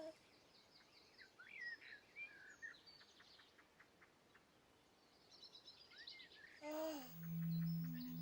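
Faint birdsong: scattered chirps and short trills. Near the end a falling glide is followed by a low steady musical tone as music begins.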